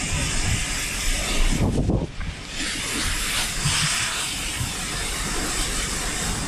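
High-pressure fire hose nozzle (SRKU-2VD3 on a high-pressure reel) spraying a water fog with a steady hiss. The hiss drops out briefly about two seconds in, just after a few low knocks, then starts again.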